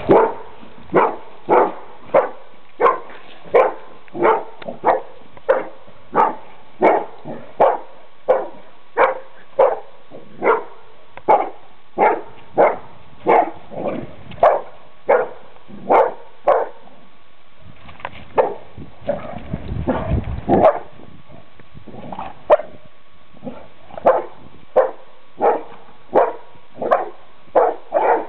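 Golden Labradors barking at a snake in a steady, insistent run, roughly one to two barks a second. The barks stop for a couple of seconds about two-thirds through, where a low rumbling noise takes over, then start again.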